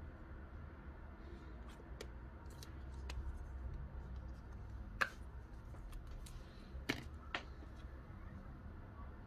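Small sharp plastic clicks and light taps from disposable plastic syringes being handled and taken apart. The loudest click comes about five seconds in and two more come around seven seconds, over a faint steady low hum.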